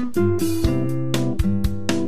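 Background music: quick plucked notes, about four a second, over a held low bass note.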